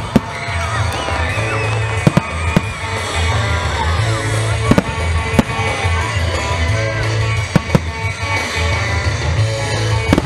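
Aerial firework shells bursting with several sharp bangs, a second or two apart, over music with a pulsing bass.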